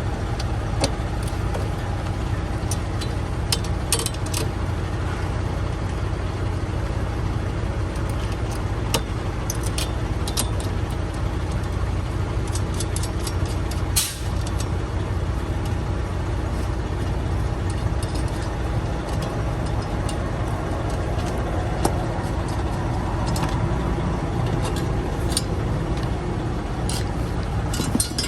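A truck engine idling with a steady low hum, with scattered clicks and clinks of hand tools on metal while a dash bracket is unbolted.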